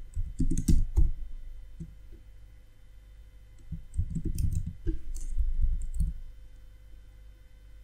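Computer keyboard keys clicking in two short runs of typing: a quick burst about a second in, and a longer run from about four to six seconds in.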